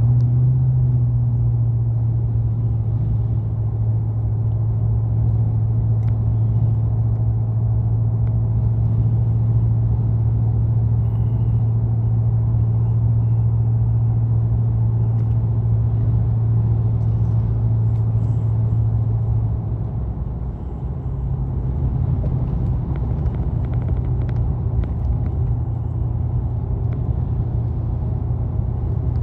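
Steady low drone of a car's engine and tyre noise heard from inside the cabin while cruising on a freeway. The hum dips briefly about two-thirds of the way through, then carries on.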